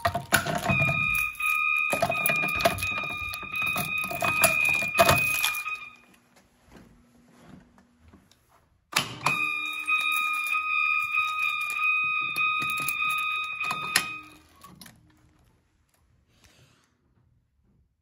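System Sensor MASS horn sounding a high, steady tone near 1200 Hz during a fire alarm walk test: two soundings of about five seconds each, the first starting just under a second in and the second about nine seconds in. A ring of keys jangles and clicks at the pull station during the first sounding.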